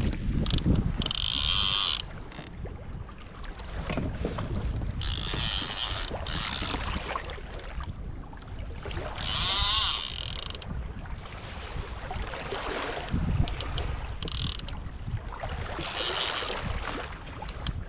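Fishing reel worked in short spells, a ratcheting whir every few seconds, over wind and water noise on a boat.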